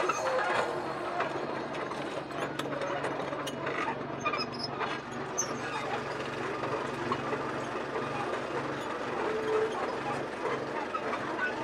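Metal lathe running steadily while a center drill and then a small twist drill bore into the end of a spinning tool-steel rod, with a low motor hum and scattered ticks and scraping from the cutting.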